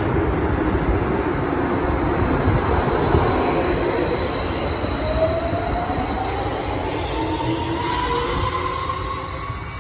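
MetroLink light rail train pulling out and accelerating away: a steady rumble of wheels on rail, with a thin high tone in the first few seconds. An electric motor whine rises in pitch through the second half, and the whole sound fades near the end as the train draws off.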